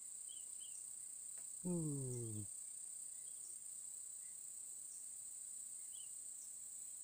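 Insects shrilling steadily at a high pitch. About two seconds in, a man's voice makes one short sound lasting under a second.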